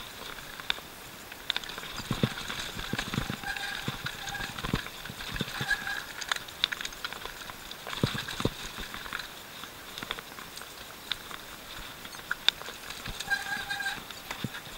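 Mountain bike rattling over a rocky singletrack descent: irregular knocks and clatter of tyres, chain and frame on stones. A high whirring buzz comes in twice, about a quarter of the way in and again near the end.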